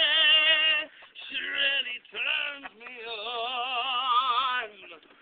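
A voice singing in an operatic style with a heavy vibrato: a held note, two short phrases, then one long held note that stops shortly before the end.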